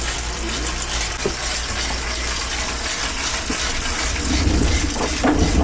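Indoor bicycle trainer whirring steadily as the rider pedals; from about four seconds in a deeper hum comes in and it gets louder.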